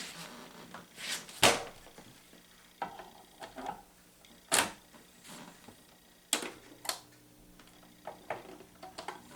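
Irregular sharp mechanical clicks and knocks, about half a dozen spread over the few seconds, the loudest about a second and a half in and again past four seconds.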